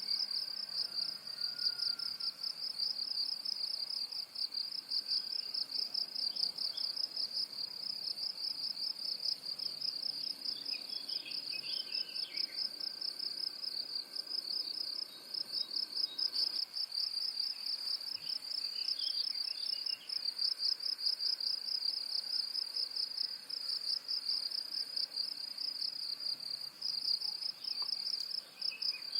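A continuous, fast-pulsing, high-pitched insect trill, with faint bird chirps now and then.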